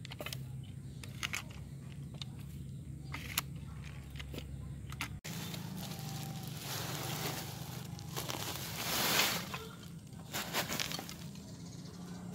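Hands-on soil work: scattered crunches and rustles of soil and a woven plastic sack being handled, with a longer, louder grainy rush a little after the middle.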